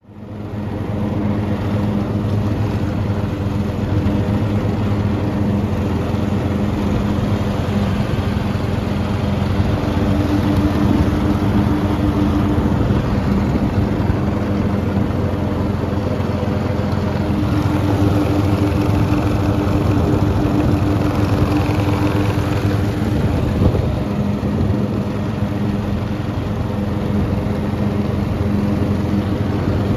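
Oleo-Mac ride-on lawn tractor's engine running steadily under way, fading in at the start, its pitch shifting slightly now and then.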